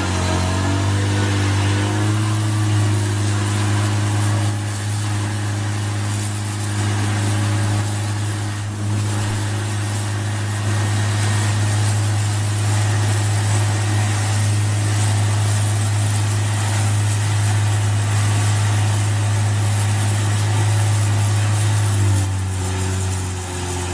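An engine running steadily with a deep, even hum, holding the same speed throughout.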